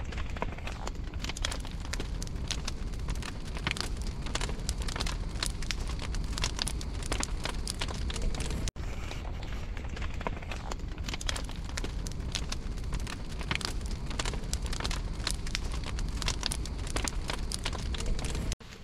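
Brush pile of wet, rain-soaked wood burning, with dense crackling and popping: many sharp snaps over a steady low rush. The fire is only just catching.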